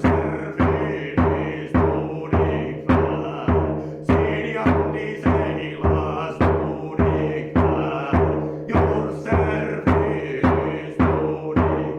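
A frame drum beaten in a steady, even rhythm, a little under two strokes a second, each stroke booming and dying away, over a sustained drone.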